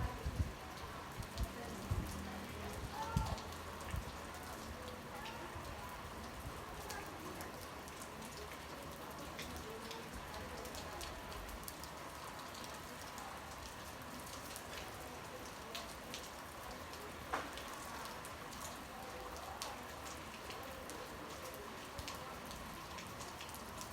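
Rain falling steadily, the patter of many drops striking surfaces, with a few louder knocks in the first few seconds.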